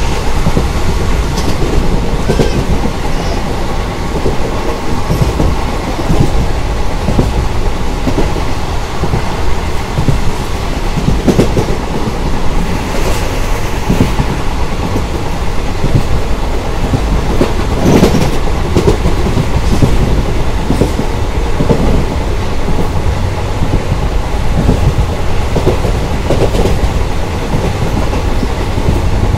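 An Indian Railways ICF passenger coach's wheels running over the track, heard from inside the moving coach: a steady rumble with a clickety-clack of rail-joint knocks, a few of them louder, the loudest about 18 seconds in.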